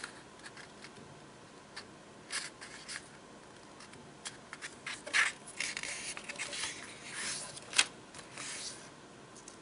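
Sheet of origami paper being folded in half and its crease pressed flat with the fingertips: soft paper rustles and fingers rubbing along the fold, with a few sharper crackles.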